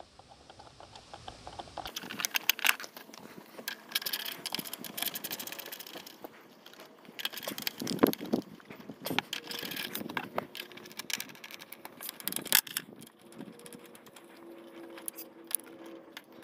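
Metal hand tools clinking, rattling and scraping in irregular clicks and knocks as the air filter housing of a Toro push mower is unbolted with a socket and screwdriver.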